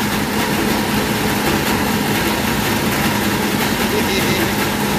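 Engine of nearby farm machinery running steadily: a loud, even mechanical noise with a constant low hum under it.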